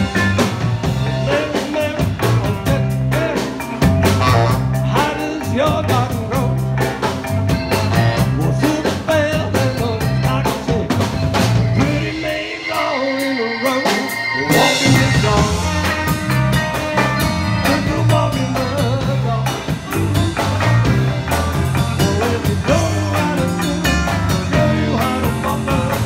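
Live rhythm-and-blues band playing: drum kit and bass keeping a steady beat, with saxophones and a woman singing. About halfway through, the bass and drums drop out for about two seconds, then the band comes back in with a cymbal crash.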